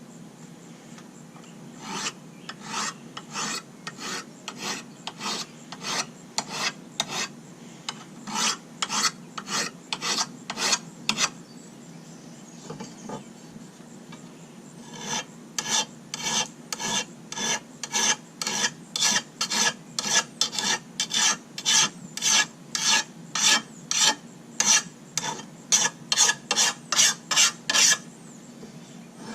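Hand metal file rasping across the edge of a lawn mower blade in steady strokes, about two a second, sharpening the dull blade. The filing stops for a few seconds midway, then resumes at a slightly quicker pace.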